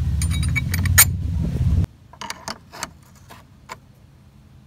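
Small metal hardware clinking as a bolt and washer go through a steel mounting bracket, over a steady low rumble. The rumble cuts off suddenly about two seconds in, leaving scattered light metallic clicks of bolt, nut and bracket being handled.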